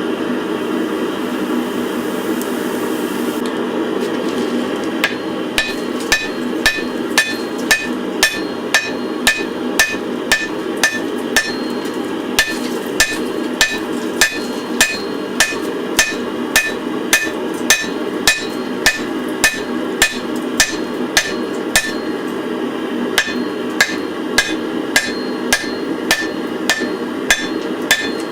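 Hammer striking a hot wrought iron and spring steel bar on the anvil to forge-weld the joint, in an even rhythm of about three blows every two seconds, each blow ringing. The blows start about five seconds in, over a steady rushing noise.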